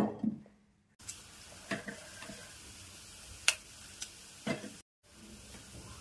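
Green chillies being snapped into pieces by hand over a steel bowl: about half a dozen short, sharp cracks and light knocks, with a steady faint hiss beneath.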